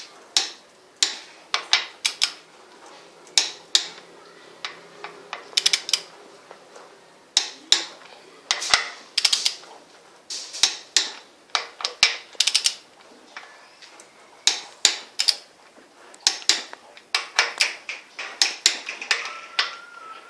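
Click-type torque wrench ratcheting in short bursts of sharp clicks as the flywheel bolts are tightened to torque.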